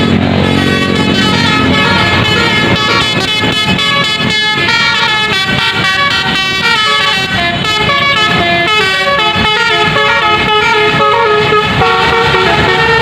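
Tour bus's multi-tone musical air horn (klakson telolet) sounding a melody of stepping pitches, loud, over traffic noise.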